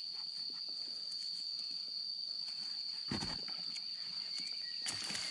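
Steady, high-pitched drone of insects, with a dull thud about three seconds in and a couple of fainter knocks near the end.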